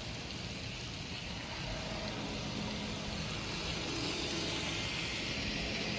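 N scale model freight train rolling past close by: a steady rattling hiss of the cars' wheels on the rails, growing a little louder in the second half, with a faint hum as the mid-train locomotive goes by.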